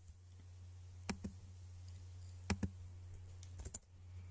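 Scattered clicks of a computer mouse and keyboard as a value is typed into a field: three quick pairs of clicks about a second apart, over a low steady hum.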